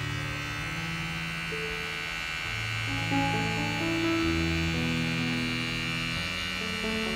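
A counterfeit Codos CP-6800 cordless pet hair clipper switched on and running, with a steady electric motor buzz. Background music plays underneath.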